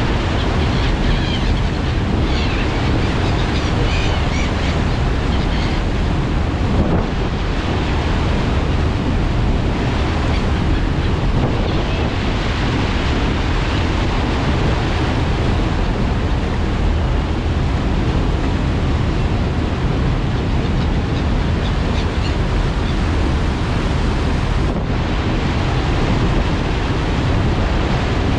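Steady rush of a passenger ferry's churning wake behind the stern, with wind buffeting the microphone and a constant low rumble underneath.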